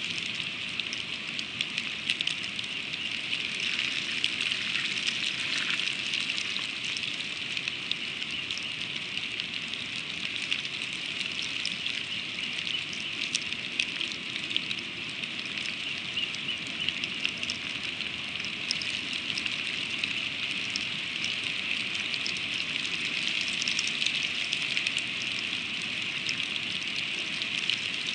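Freezing rain pattering steadily: a constant hiss sprinkled with many fine ticks.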